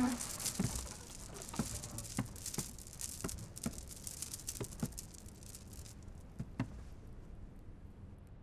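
Soft footsteps, about two a second, over a light rustle of cloth that stops about six seconds in.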